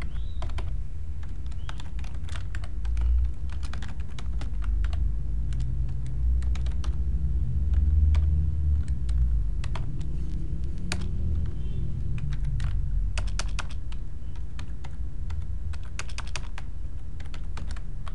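Typing on a computer keyboard in short bursts of keystrokes with pauses between them, over a steady low hum.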